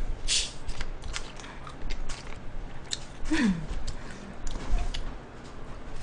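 A green glass bottle being twisted open by hand, with small sharp clicks from the cap and a short hiss about a third of a second in, then drunk from. A brief falling low vocal sound comes about halfway through.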